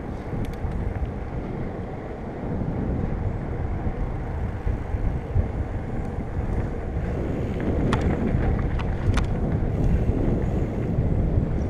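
Wind buffeting an action camera's microphone over the rumble of mountain bike tyres on a dirt trail, getting louder about two seconds in as speed picks up. A few sharp clicks and rattles from the bike cut through, the loudest near the end.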